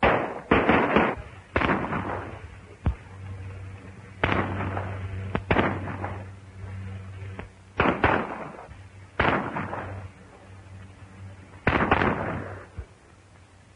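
A gunfight: about ten gunshots at irregular intervals, some in quick clusters, each one trailing off in an echo.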